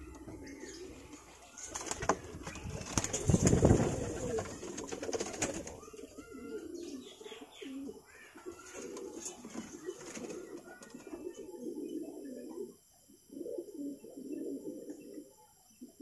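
Domestic fancy pigeons cooing, low coos repeated in short bouts one after another. About two seconds in comes a louder burst of rustling and knocks lasting a few seconds.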